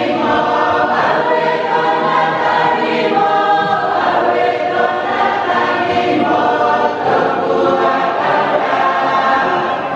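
A large church congregation singing a hymn together, many voices holding long sung notes.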